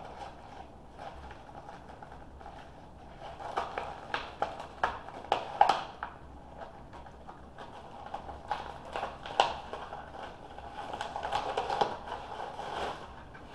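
Plastic packaging of a Baby Born Surprise toy capsule crinkling and clicking as it is peeled and unwrapped by hand. The sharp crackles come in two spells: from about three and a half seconds in, then again from about eight seconds to near the end.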